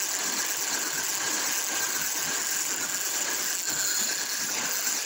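Fishing reel being cranked steadily to retrieve a lure, a continuous mechanical whir, over the rush of a shallow river.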